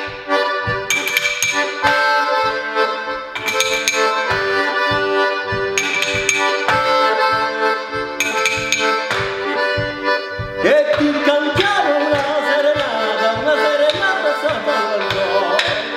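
Small button accordion playing a lively tune, its chords over a regular bass beat.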